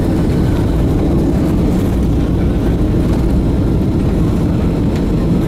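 Cabin noise of a Boeing 757-200 landing: a loud, steady low rumble of engines, airflow and wheels on the runway, heard from a seat over the wing as the aircraft touches down and its ground spoilers deploy.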